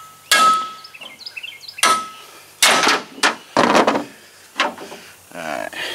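Steel hammer blows on a 2003 Toyota Tacoma's steering knuckle and ball joint stud, knocking the stud out of its taper: about half a dozen metal-on-metal strikes, irregularly spaced, the first two ringing.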